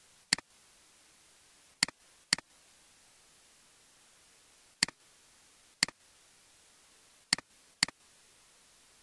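Seven sharp computer mouse button clicks, each a loud click with a softer one right after it; two of them come as pairs about half a second apart. Faint steady hiss underneath.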